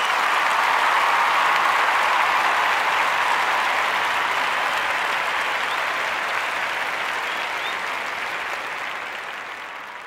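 Audience applauding, a steady clatter of many hands that slowly dies away over the last few seconds.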